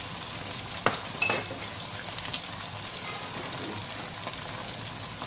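Sautéed onions, garlic and ginger with freshly added sauces sizzling steadily in oil in a hot wok, with a couple of sharp clicks about a second in.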